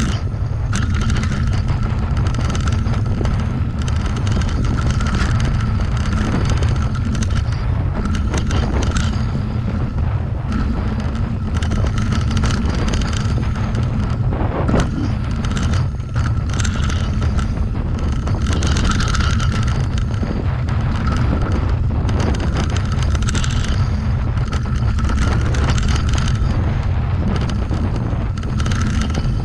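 Wind buffeting the camera microphone over the noise of a mountain bike's knobby tyres rolling on a dirt trail: a steady low rumble with hiss on top.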